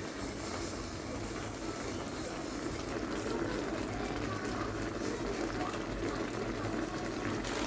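Seafood stir-fry cooking in a pan, a steady bubbling sizzle.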